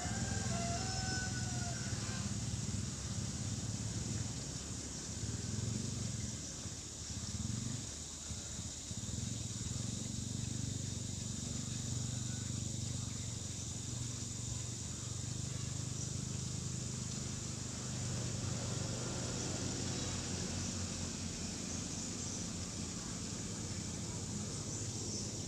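Steady outdoor ambience: a low, even hum that fades briefly partway through, under a constant high buzz of insects. A rooster's crow trails off in the first two seconds.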